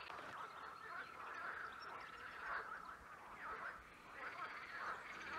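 Faint chorus of wild animal calls: many short, overlapping chirps.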